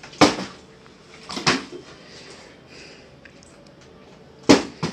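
A partly water-filled plastic bottle is flipped and lands on a table. Four sharp knocks: one at the start, one about a second and a half in, and two in quick succession near the end.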